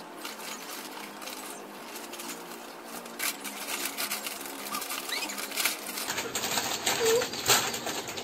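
Plastic snack packets crinkling and rustling irregularly as they are fumbled and pulled open without thumbs, louder from about three seconds in.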